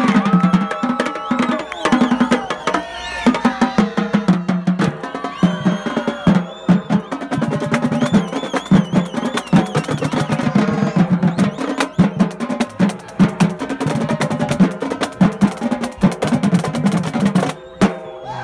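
Marching drumline playing a fast cadence on snare, tenor and bass drums: dense rolls and rapid strokes under heavy accents. The playing breaks off briefly just before the end.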